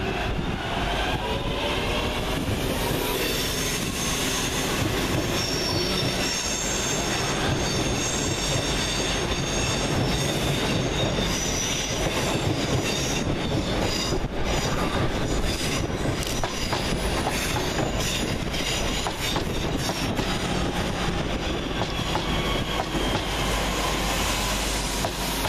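A pair of Class 323 electric multiple units pulling away and accelerating, the traction motors' whine rising in pitch over the first ten seconds or so. Wheel and rail noise continues as the train runs past.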